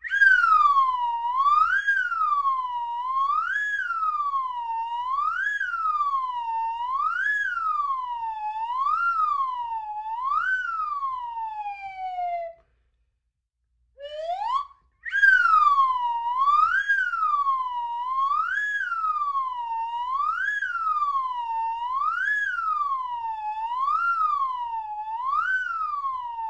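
Slide whistle playing a repeated up-and-down swoop, its pitch sliding up and back down about once every second and three-quarters, like a siren. About halfway through it stops briefly, gives one quick upward slide, then starts again with a rising slide and carries on swooping.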